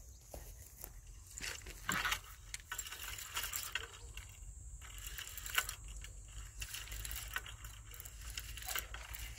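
Irregular clicking, rattling and rustling of fishing tackle being handled as a hooked eel is brought in on a rod, with a sharper knock about two seconds in and another just past halfway.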